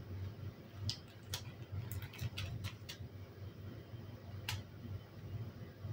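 Light clicks and scrapes of a spoon spreading crème fraîche over pastry dough on baking paper, about eight irregular clicks in all, over a low hum.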